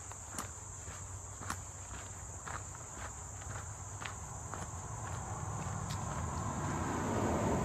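A steady, high-pitched insect chorus with footsteps on a trail about once a second. From about five seconds in, a low rushing sound grows louder.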